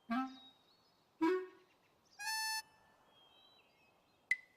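Cartoon sound effects: three short pitched tones, the first two dropping quickly in pitch and the third held higher for about half a second, then a sharp pop with a brief ring near the end.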